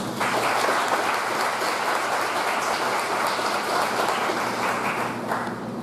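Audience applauding, a steady patter of many hands clapping that stops near the end.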